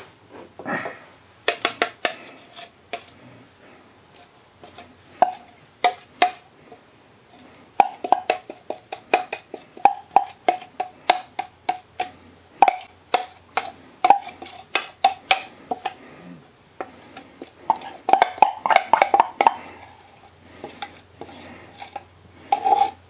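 A utensil tapping and scraping against the inside of a stainless steel pot, sticky peanut butter and corn syrup being worked out of a measuring cup. The metal clinks come in quick runs of several a second, each with a short ring, with a busier cluster near the end.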